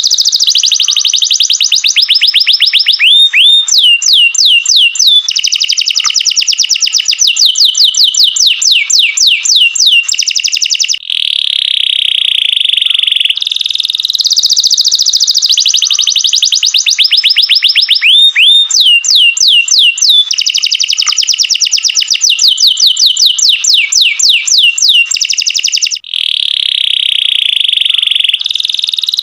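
Domestic canary singing loudly in fast high trills and rolls, with runs of quick rising and falling sweeps between them. The same sequence of phrases comes round twice, broken by a brief pause about eleven seconds in and again near the end.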